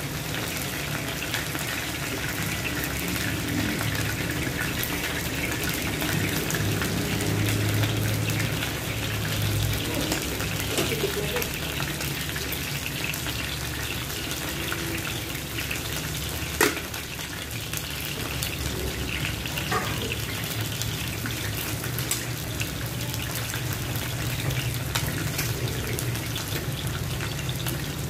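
Flour-dredged chicken breast pieces frying in shallow oil in a nonstick pan: a steady sizzle with fine crackling, and one sharp click about two-thirds of the way through.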